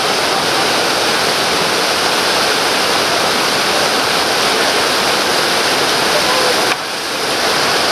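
Whitewater rapid rushing over rocks: a loud, steady rush of water that drops briefly quieter near the end.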